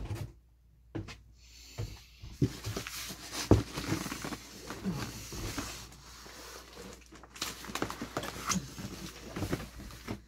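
Heavy cardboard box being shifted and its flaps handled: cardboard scraping and rustling with scattered knocks and thumps, the sharpest about three and a half seconds in.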